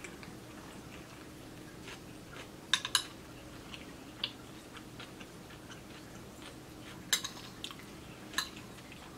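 Metal fork clicking and scraping against a ceramic plate as food is cut and scooped, a handful of short sharp clicks, the loudest a quick cluster about three seconds in, with soft chewing between.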